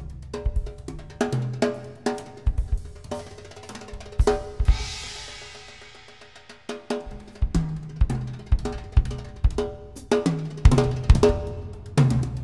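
Instrumental music led by a drum kit: kick and snare hits over a bass line, with a cymbal crash about four and a half seconds in that rings out and fades.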